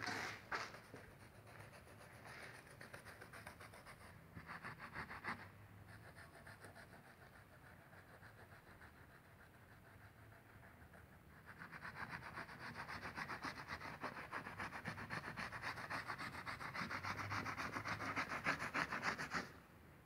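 A toothbrush scrubbing grout residue off textured stained glass in a grouted mosaic, in fast back-and-forth strokes. There is a short burst of scrubbing about four to five seconds in, then steadier, louder scrubbing from about halfway, which stops near the end.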